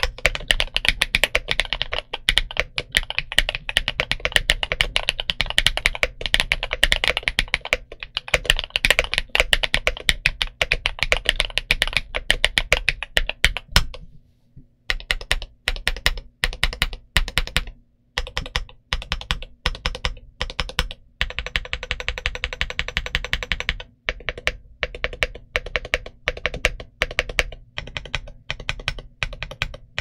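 Chilkey ND75 mechanical keyboard with Gateron EF Dopamine Blue switches and double-shot PBT Cherry-profile keycaps being typed on. The typing is fast and dense at first, stops briefly about halfway, then goes on as more separate keystrokes with a quick burst of presses a little later.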